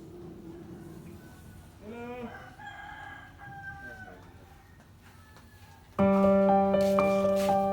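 A rooster crows once, a single drawn-out call about two seconds in. About six seconds in, loud keyboard music starts suddenly.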